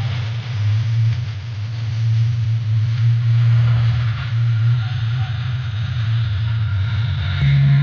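A loud, steady low hum with crowd voices over it; the hum shifts up in pitch near the end.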